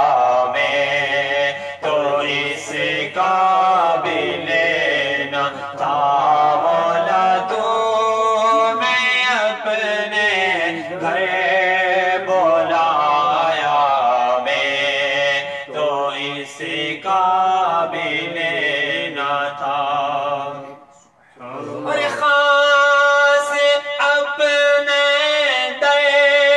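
A man's voice singing an Urdu naat, sung unaccompanied with long, gliding held notes. The singing breaks off for about a second a little past three-quarters through, then resumes.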